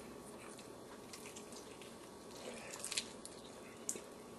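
A person biting and chewing a piece of grilled chicken: faint wet mouth clicks and smacks, with a few sharper ones around three and four seconds in.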